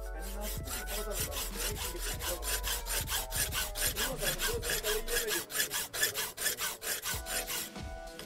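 Hand file scraping steel in quick, even strokes, about four a second, as the lock notch of a handmade folding knife is filed out.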